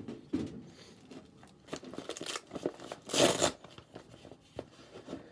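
Packaging being handled: rustling and crinkling with small handling knocks, the loudest burst of crinkling about three seconds in, as the modular power supply's cables are taken from their bag.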